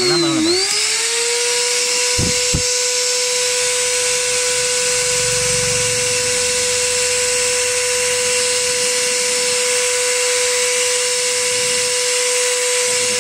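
A small electric motor runs at high speed with a steady high whine. About half a second in its pitch dips briefly, then it settles, and two low knocks come about two seconds in.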